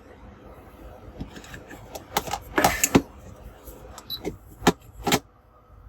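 A run of sharp clicks and light knocks, about half a dozen, between two and five seconds in, from small tools and laptop parts being handled on a work surface.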